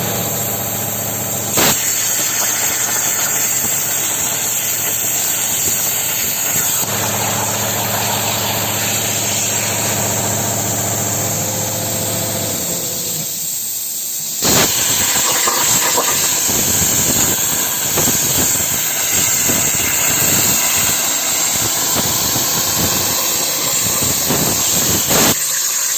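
Plasma cutter on a CNC table: a steady hiss with an electrical hum, a short lull, then a sharp click about halfway through and a rougher, crackling hiss after it.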